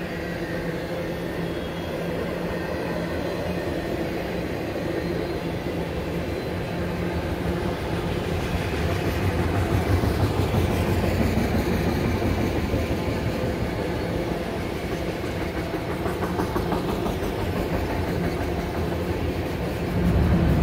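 Freight train of autorack cars rolling past, its steel wheels running steadily on the rails. It grows louder about halfway through and again near the end.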